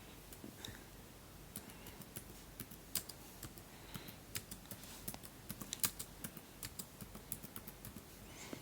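Typing: faint, irregular key clicks, several a second, coming thicker from about a second and a half in.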